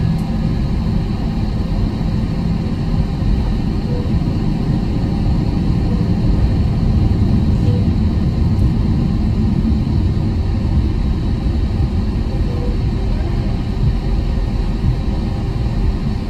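Steady low rumble inside the cabin of an Airbus A321 taxiing, its IAE engines running at low taxi thrust as the wheels roll over the taxiway.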